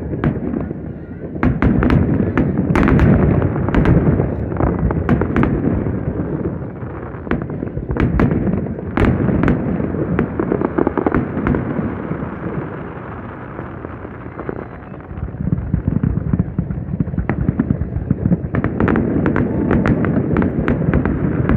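Fireworks going off: many sharp cracks and pops in clusters over a continuous rumbling of bursts, easing in the middle and thickening again near the end.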